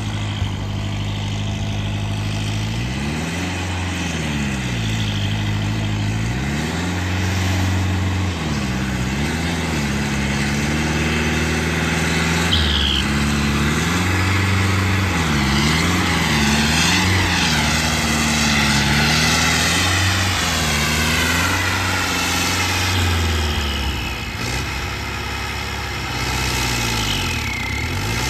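Turbocharged Farmtrac tractor's diesel engine working under load while pulling a disc harrow, its pitch rising and falling again and again as the revs swing. A higher whistle rises and falls above the engine in the middle.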